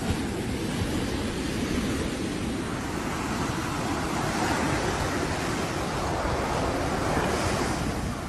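Ocean surf breaking and washing up a sandy beach, a steady rush with a wave swelling louder about halfway through, over a low rumble of wind on the microphone.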